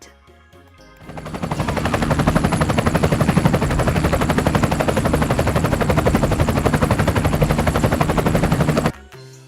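Loud aircraft flyover sound effect: a rapid, steady chopping drone that swells in about a second in and cuts off abruptly near the end.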